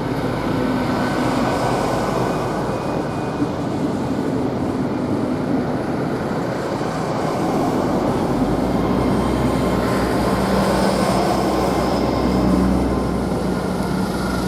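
Great Western Railway Class 802 bi-mode train running on its underfloor diesel engines as it pulls into the platform. A deep engine rumble with a steady hum sets in about eight seconds in, over the general noise of the moving train.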